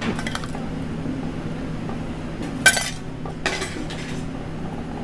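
A metal fork clinking and scraping against an aluminium pan and a ceramic plate as pasta is served out, with a sharp clink about two and a half seconds in and a softer one just under a second later. A steady low hum runs underneath.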